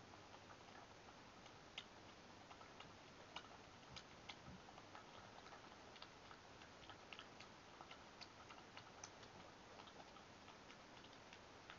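Faint, irregular clicks and ticks of a European badger eating from a glass bowl, over a steady low hiss.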